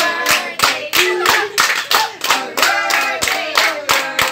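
A small group of people clapping in time, a steady beat of about three claps a second, while voices sing along.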